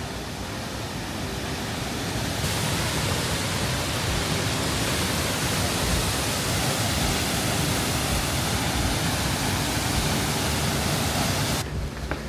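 Rushing water at the head of a waterfall: a steady, even hiss that grows fuller about two seconds in and cuts off suddenly near the end.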